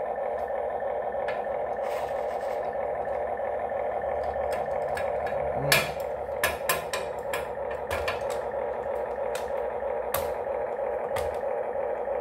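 Huina 1592 RC toy excavator playing its simulated engine sound through its small speaker, a steady buzzy drone. Plastic clicks and knocks from the toy's tracks being handled sit on top, the loudest a little before the middle and a quick run of them just after.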